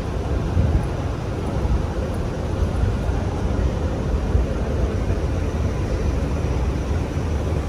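Steady low rumble of outdoor noise, strongest at the bass end, with no distinct events standing out.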